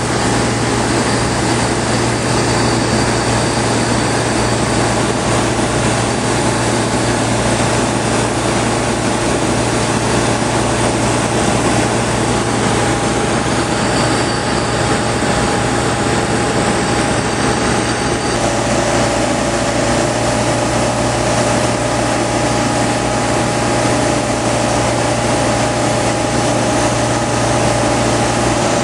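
Steady cabin drone of a Flight Design CTSW light aircraft in cruise: its Rotax 912 engine and propeller running, with rushing air noise. The humming tone changes slightly about two-thirds of the way in.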